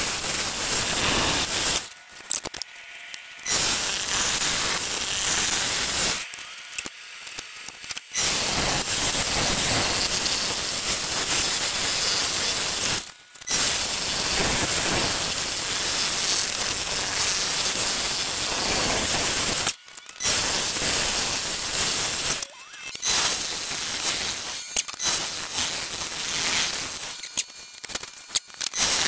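Wood being shaped on a running wood lathe: a steady hiss of the tool against the spinning wood, dropping away briefly about six times.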